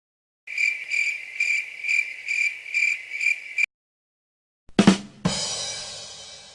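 Cricket chirping sound effect, a high chirp repeating about twice a second for three seconds, then a rimshot drum sting: two quick drum hits and a cymbal ringing out ("ba dum tss").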